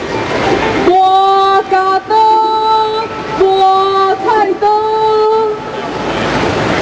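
A female voice sings a short phrase of long held notes, with short slides between them, over a steady background din. The singing starts about a second in and stops shortly before the end.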